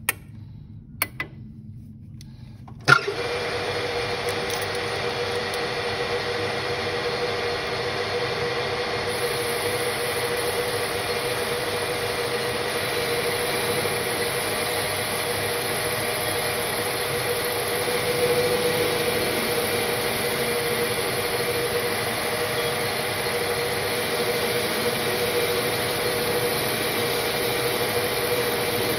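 A few clicks as the lathe's toolpost is handled, then about three seconds in the AL-1324 centre lathe starts with a sharp clack and runs steadily with a constant hum, its tool turning the workpiece in the spinning chuck.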